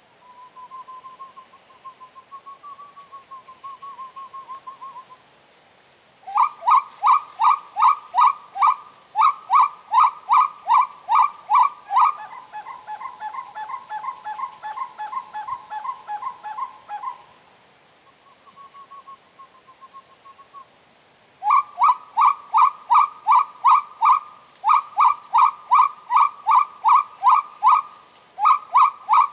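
Whistled calls in the uru (spot-winged wood-quail) pattern. A soft warbling phrase gives way to loud, rapid, evenly repeated notes at about five a second. Midway there is a steadier trill and a brief soft warble, then the rapid series returns.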